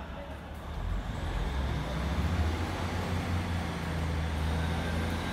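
Class 150 Sprinter diesel multiple unit's underfloor diesel engines powering up as the train starts to pull away, a low steady drone that swells about a second in and stays loud.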